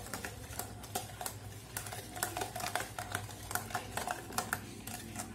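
Spoon stirring a thick mix of ground biscuits, butter and milk in a stainless steel mixer-grinder jar. It clinks and scrapes against the metal sides in quick, irregular strokes, two or three a second.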